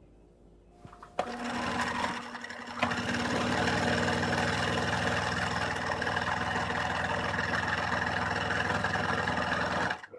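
Electric domestic sewing machine stitching fabric. It starts about a second in, eases off for a moment, then runs steadily at speed and stops near the end.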